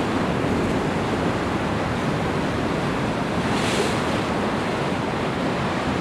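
Ocean surf washing onto a rocky shore: a steady rush of breaking waves, with a brief brighter hiss of wash a little past the middle.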